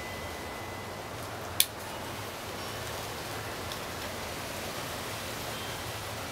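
Steady outdoor background hiss, with one sharp click about a second and a half in and a few faint, brief high peeps scattered through.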